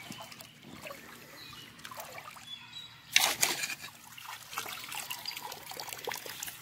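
Shallow creek water trickling and splashing as a hand net is scooped through it and boots shift among the rocks, with one louder splash about three seconds in.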